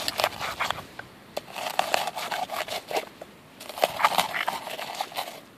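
A hand-held rock crushing and grinding lumps of campfire charcoal against a flat stone slab: quick crunching and scraping strokes in three bursts with short pauses between.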